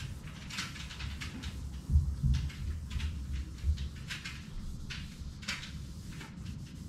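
Alcohol wipe being rubbed across a vinyl-wrapped car hood in repeated strokes, a string of short rustling swishes, to clean it before an adhesive-mounted panel goes on. A few dull thumps come about two seconds in.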